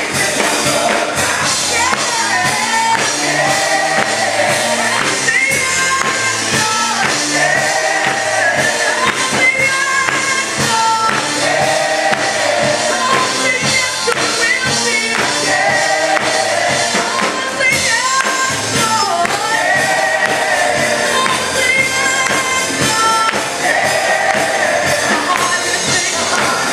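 Live gospel worship music: a praise team singing over a full band, with a tambourine keeping the beat.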